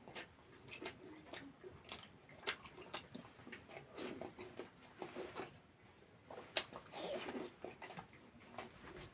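A person chewing roti dipped in curry gravy close to the microphone, with wet mouth sounds and irregular sharp smacks.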